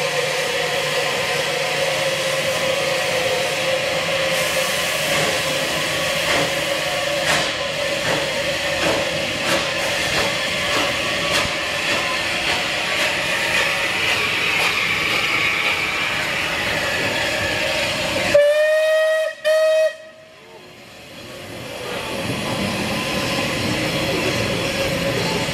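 Bulleid West Country class steam locomotive 34092 City of Wells hissing steadily as it pulls away, with a run of sharp exhaust beats. About 18 seconds in its whistle sounds twice, a longer blast and then a short one.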